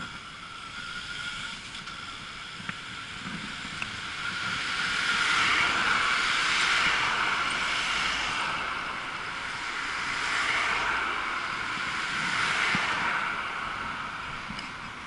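Rushing wind and road noise heard from a moving e-bike, a steady haze that swells louder twice, about a third of the way in and again after about ten seconds.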